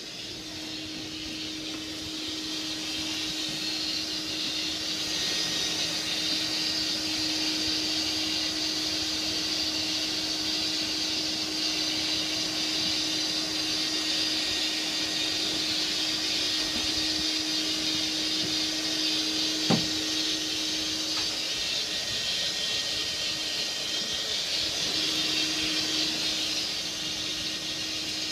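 Electric motor-driven air mover running steadily: a rushing hiss over a low steady hum, growing louder over the first few seconds. One sharp knock comes about two-thirds of the way through.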